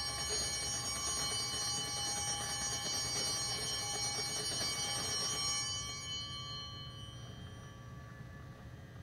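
Altar bells rung continuously at the elevation of the consecrated host: a cluster of high, steady ringing tones that stops about six seconds in and dies away over the next second.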